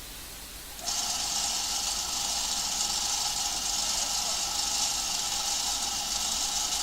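Power drill starting up about a second in and running steadily with a high whine, drilling a hole through a bolt.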